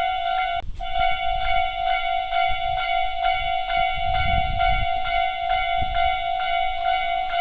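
Japanese railway level-crossing warning bell from a homemade model crossing, ringing steadily at about two and a half strokes a second. It cuts out for an instant just under a second in, and a low rumble rises under it around the middle.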